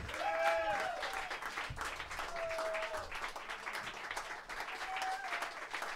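Audience applauding, a dense patter of clapping, with a voice calling out briefly about half a second in.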